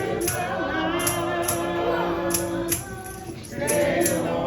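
Gospel singing with a tambourine struck on the beat about twice a second; the singing holds one long note through the middle.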